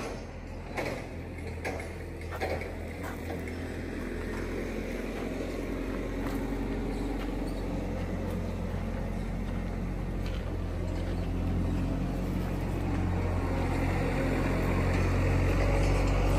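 A large engine idling steadily, growing louder over several seconds, with a few light clicks in the first few seconds.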